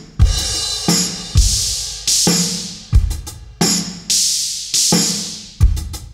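Electronic pop drum samples fired by a drum trigger, playing a steady beat. Deep kick-drum hits alternate with bright snare-like hits, each ringing out in a long fade.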